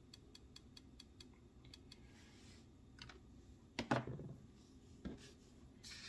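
Faint, quick, even ticking for the first couple of seconds, then a few light taps of tools on the workbench, the sharpest about four seconds in.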